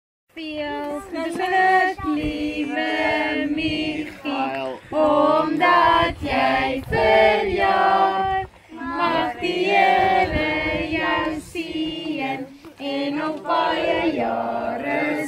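A group of women and children singing together in chorus, a birthday song for a child turning five. It starts abruptly just after the opening.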